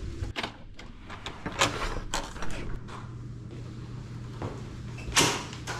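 Hotel room door being opened: a few clicks and knocks of the latch and door, with the loudest knock near the end. A steady low hum comes in about halfway through.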